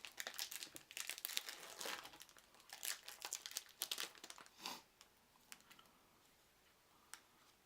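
Booster-pack wrapper crinkling and tearing as the pack is opened: a rapid run of crackles that dies away after four to five seconds.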